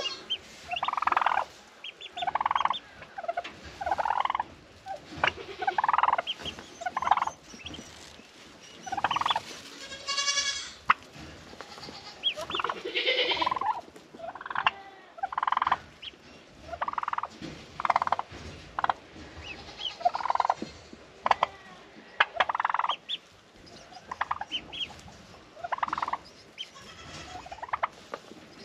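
Broody turkey hens calling over and over, short calls every second or two, with one longer, drawn-out call about ten seconds in.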